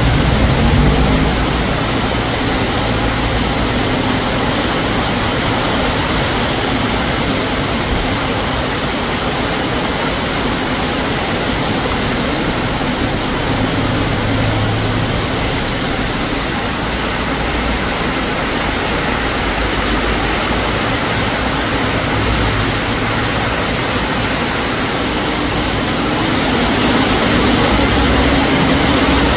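Heavy rain pouring steadily, a dense even hiss. A motor vehicle's engine hums underneath and grows a little louder near the end.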